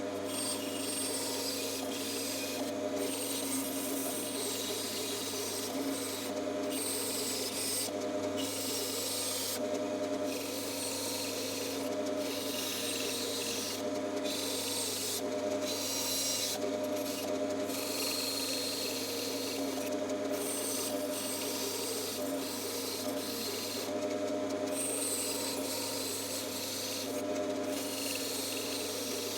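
Bandsaw running steadily and cutting through wood. A motor hum and blade tones sit under a hissing cutting noise that breaks off briefly every second or so as the workpiece is fed and turned.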